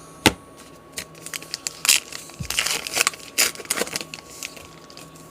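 Crinkling and crackling of a trading card pack's wrapper and cards being handled, a string of sharp irregular rustles and clicks.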